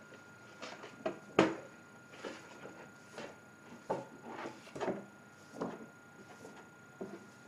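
A small brush scrubbing thinned silicone into a sheet of soft card, in irregular short scratchy strokes and taps, the sharpest about a second and a half in.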